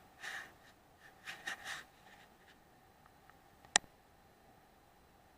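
A single short, sharp report from a Weihrauch HW100 .177 pre-charged pneumatic air rifle fired with a moderator, a little past the middle. It comes after a few soft rustles.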